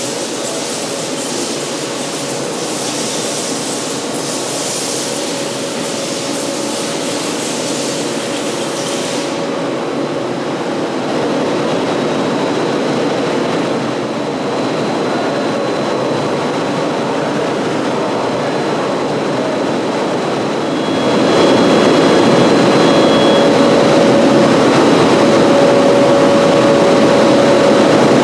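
Factory machinery running: a steady mechanical din with a held hum. It grows louder about eleven seconds in and again about twenty-one seconds in.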